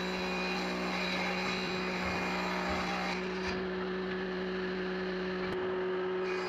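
Table saw running with a steady motor hum, its blade ripping a wooden board for the first three seconds or so, then spinning without load.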